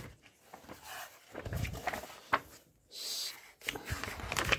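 Pages of a textbook being leafed through by hand: paper rustling and flicking, with one louder swish of a page about three seconds in.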